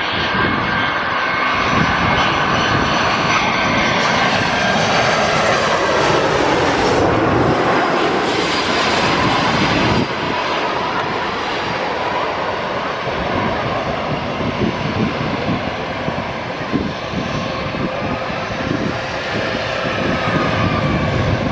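Arriving airliner's engines passing close by, their whine falling in pitch as it goes over. About halfway through the sound cuts abruptly to a steadier aircraft engine noise.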